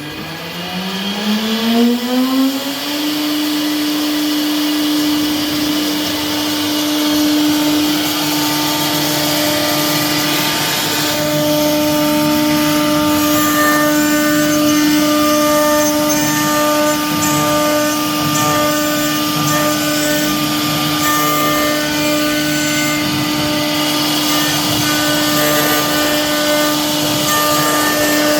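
CNC router spindle spinning up over the first three seconds, its pitch rising, then running at a steady whine.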